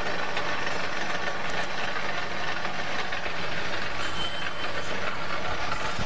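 Electric wire stripping machine running steadily, its motor and gearbox driving the feed rollers and blades as insulated copper wire is fed through.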